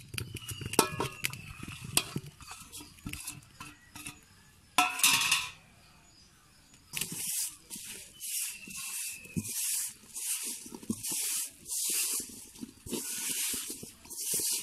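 A hand mixing mushroom pieces into a dry flour-and-spice coating in a steel bowl. It starts with light clicks and a louder knock about five seconds in. From about seven seconds there is a steady rhythmic rustling and squishing, roughly one stroke a second, as the pieces are tossed and pressed through the mix.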